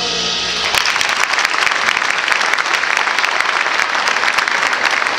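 A brass band's held final chord cuts off under a second in, then the audience applauds steadily.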